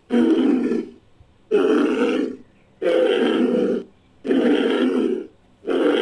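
Made-up rhinoceros creature sound effect, built from a woolly rhinoceros sound effect: five deep animal calls in a row, each just under a second long, coming at a steady pace with short gaps between them.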